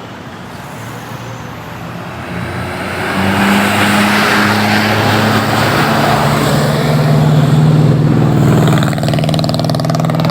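A bus's diesel engine pulling away. It gets louder about three seconds in and settles into a steady low drone, which drops in pitch about halfway through, as at a gear change.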